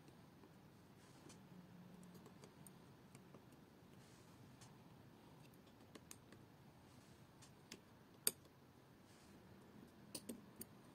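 Faint, scattered clicks of metal tweezers and stiff jumper wire legs being pressed into a plastic solderless breadboard. The loudest click comes about eight seconds in, and a quick pair follows near the end.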